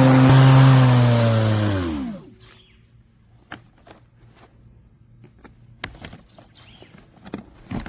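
Litheli 18-inch 40V brushless cordless lawn mower running with a steady hum, then switched off about a second and a half in, its motor and blade spinning down in a falling whine that dies away within a second. After that come a few light clicks and knocks.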